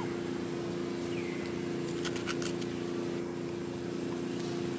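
A steady low motor hum runs throughout, with a short falling whistle-like call about a second in and a few sharp clicks around two seconds in.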